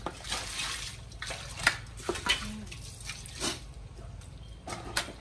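Water splashing on a wet concrete floor as a crocodile carcass is butchered, with a few sharp knocks and scrapes from a large knife cutting at the crocodile's neck.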